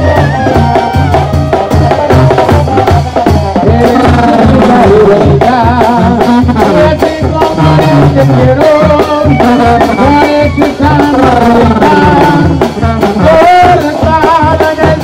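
Live tamborazo brass band music, loud: trombone and other brass play a wavering melody over a steady, fast bass-drum beat.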